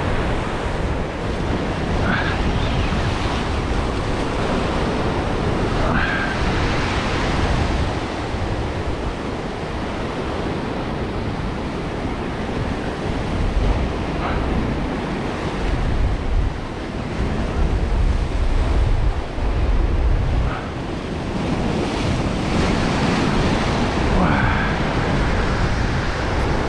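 Ocean surf breaking and washing over a rock shelf, with gusting wind buffeting the microphone; the wash swells and eases as waves come in.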